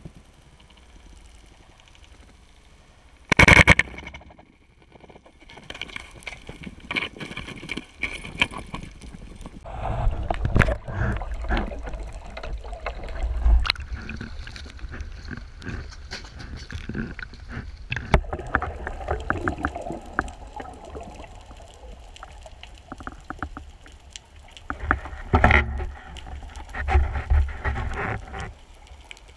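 Water noise heard through an underwater camera housing, with a single sharp, very loud clack about three and a half seconds in, then stretches of splashing, bubbling and buffeting around the surface with scattered clicks.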